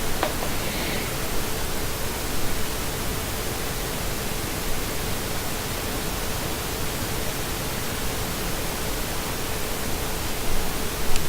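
Steady even hiss with a faint steady hum underneath and a faint click just after the start; no distinct activity sound stands out.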